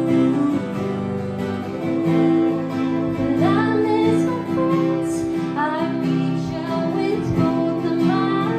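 Live acoustic guitar strummed steadily, with a woman singing sung lines over it in a couple of phrases midway through.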